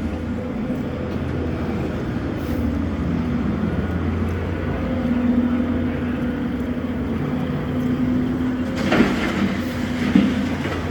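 A heavy engine running steadily with a low hum, with two short sharp knocks near the end.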